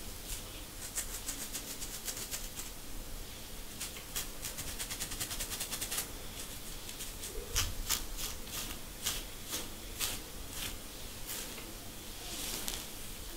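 Fingernails scratching a dry, dandruff-flaked scalp through short natural hair: quick, crisp scratches, densest in the middle of the first half, then single scratches about half a second to a second apart, ending in a longer rasp.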